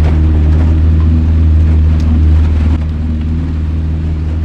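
Fishing boat's motor running steadily under way through ice, a deep even hum; it eases slightly about three seconds in, with a single sharp click just before.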